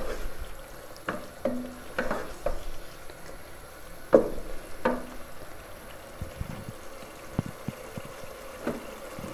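Wooden spatula stirring and scraping chicken pieces in masala against a non-stick pot: a string of short scrapes and knocks, most of them in the first five seconds and fainter later, over a faint sizzle of the chicken frying.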